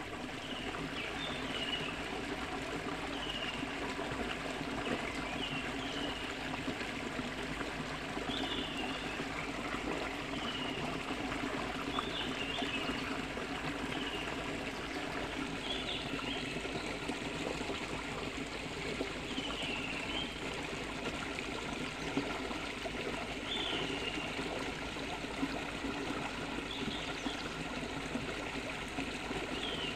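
A stream rushing steadily over rocks. Short high chirps repeat every second or two.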